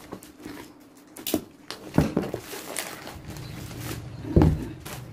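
White plastic wrapping rustling and crinkling as it is cut and pulled off a gift-wrapped box, with a few sharp knocks about two seconds in and a louder thump about four and a half seconds in.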